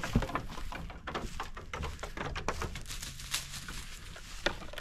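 Goats' hooves scuffling on dry straw and knocking on wooden platforms as the goats scamper and jump, with a sharper knock just after the start and another near the end.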